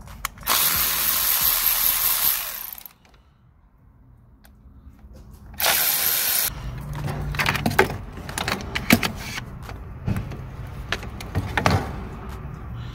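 Cordless electric ratchet running in two bursts, about two seconds and then under a second, undoing bolts on a gearshift linkage bracket. Scattered clicks and knocks follow in the second half.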